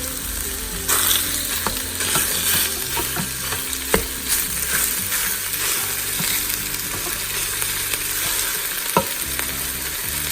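Flour-coated beef chunks sizzling steadily in hot olive oil in an Instant Pot on its brown setting, searing. A couple of sharp clicks sound about four and nine seconds in.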